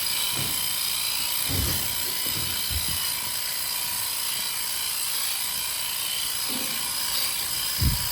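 Electric sheep shears running with a steady high whine while a lamb is dagged out. A few low thumps come through, the loudest near the end.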